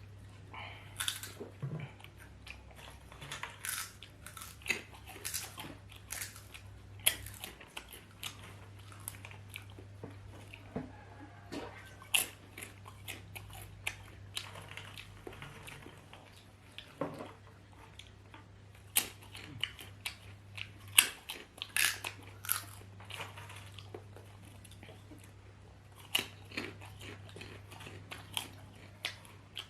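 Close-up eating of potatoes: biting and chewing with irregular sharp mouth clicks and crunches, over a low steady hum.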